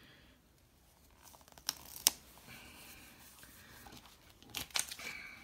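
Paper planner stickers and their sheet being handled: faint rustling and peeling, with a few sharp taps as stickers are pressed down, the loudest about two seconds in and a pair near the end.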